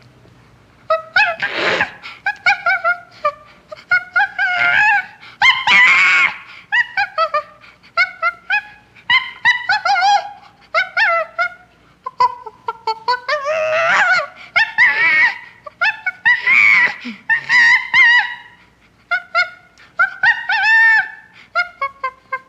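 Chimpanzee screeching: rapid series of short, high-pitched calls that rise and fall in pitch, coming in loud bouts with brief pauses between them.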